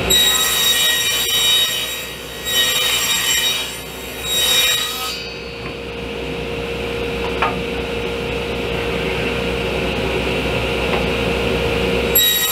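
Table saw running steadily while several melamine-faced particleboard drawer sides are pushed through it, cutting dados; each pass is a short, high-pitched whine over the motor's hum.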